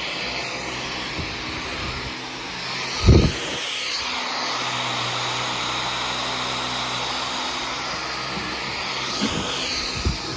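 Dyson V15 Detect cordless stick vacuum running on medium power: a steady rushing of air with a thin high motor whine that rises slightly about a second and a half in, then holds. One short thump about three seconds in.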